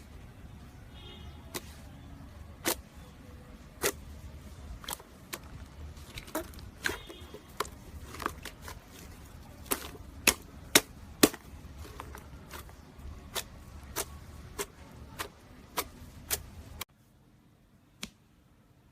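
Slime being pressed and worked by hand, giving sharp popping clicks at an irregular pace, loudest in a quick run about halfway through. Near the end the background noise drops away and a single pop follows.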